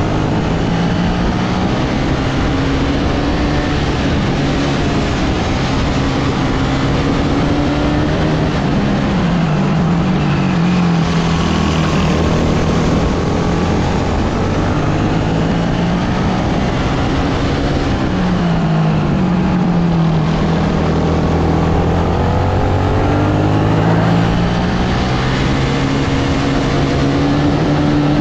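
Sodikart RX250 rental kart's engine heard onboard at race pace. Its pitch dips as it slows for corners about ten and nineteen seconds in and climbs again after each, rising on the straight near the end.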